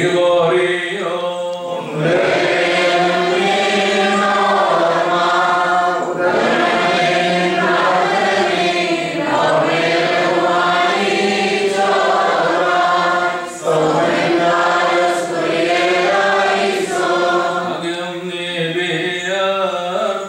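Group of male clergy chanting a Malankara Orthodox liturgical hymn together in long sustained phrases, with one brief pause partway through.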